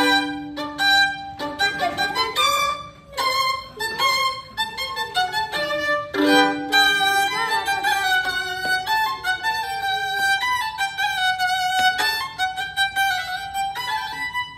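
Solo violin played with the bow: a melody that starts suddenly, with long held notes, some with a slight vibrato, including one sustained note in the middle.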